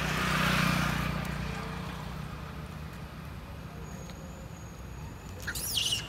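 A motor vehicle passing on the road, its noise swelling and fading over the first two seconds above a low steady engine hum. Near the end comes a short, high, sweeping squeal.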